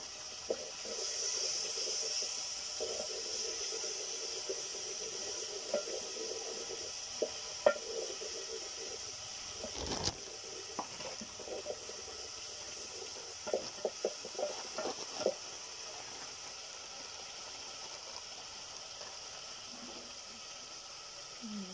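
Onions and tomatoes frying in a metal pot over a wood fire, a steady sizzling hiss, while a wooden cooking stick stirs and scrapes the pot, knocking against it now and then, sharpest about eight and ten seconds in.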